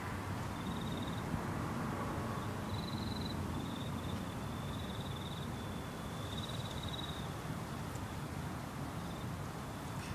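Insects chirping in short, high, pulsing trills every second or two over a steady low rumble.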